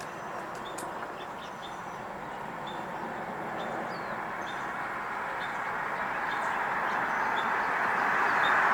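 A vehicle's road noise grows steadily louder as it approaches. Under it, a small bird repeats a short high chirp every second or so.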